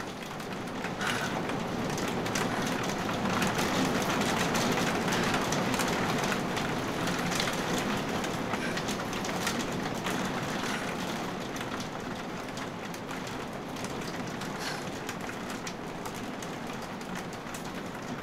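Rain falling steadily on a car's roof and windows, heard from inside the car; the hiss swells a few seconds in and then slowly eases.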